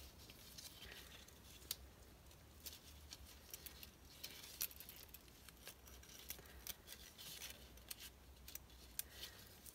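Faint scattered light metallic ticks and scrapes of a thin steel piston ring being worked by hand into its groove on a piston, over a low steady hum.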